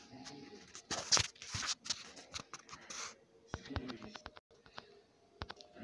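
A dog's claws clicking and scraping on a tiled floor: scuffing rustles about a second in and again near three seconds, then a quick run of sharp clicks past three and a half seconds and a couple more near the end.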